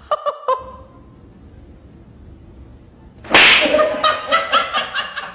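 A few short clicks, then a lull, then about three seconds in a sharp sudden sound followed by a person laughing in quick repeated bursts.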